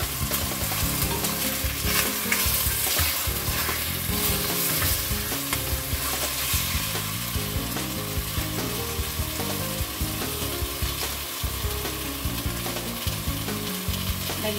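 Chicken pieces frying in hot oil with ginger and onion in a pot, a steady sizzle.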